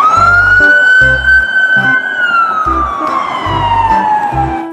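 Police siren wailing in a single cycle: a quick rise to a high pitch, a held top, then a slow fall. A children's music track with a steady beat plays underneath.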